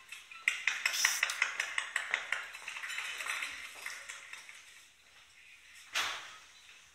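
Hand clapping from a studio audience, a quick run of sharp claps that fades out after a few seconds, followed by one short knock. Heard through a television speaker.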